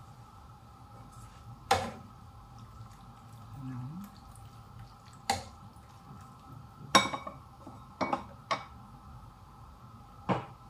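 Wooden spatula knocking against a nonstick frying pan while stirring pieces of lamb heart and offal, about six sharp knocks spread out, over a steady hum.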